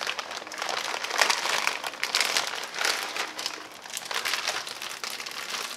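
Plastic instant-ramen packet crinkling and rustling in irregular bursts as hands pull a dry noodle block out of it. It eases a little about two-thirds of the way through.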